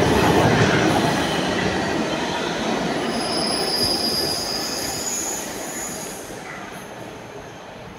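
A Milan Metro M1 Meneghino train pulling out of the station into the tunnel, its running noise dying away steadily. Around the middle its wheels give a high-pitched squeal as it enters the tunnel.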